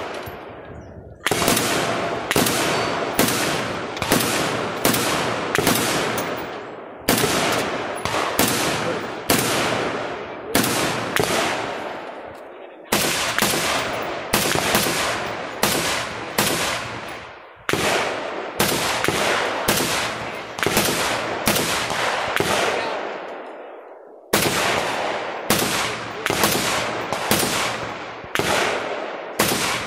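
Close gunshots from a rifle and pistol, fired in quick strings of about one and a half shots a second with brief pauses every five or six seconds; each shot has a short echoing tail.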